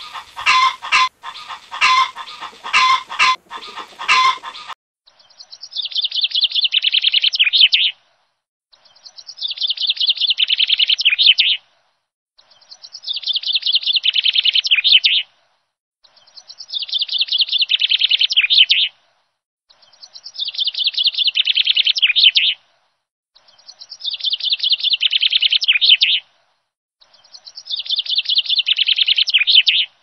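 Chickens clucking for the first four to five seconds, then a small songbird's fast, high trilling song, repeated seven times almost identically. Each song lasts about three seconds and swells in loudness, with short silent gaps between.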